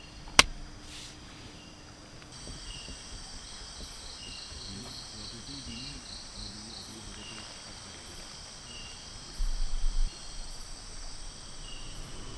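Insects calling steadily, with high tones and short chirps repeating about once a second. A sharp click comes about half a second in, and a brief low rumble about ten seconds in.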